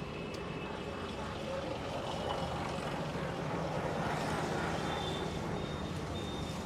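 Steady street traffic noise, with a series of short, evenly spaced high beeps starting about five seconds in.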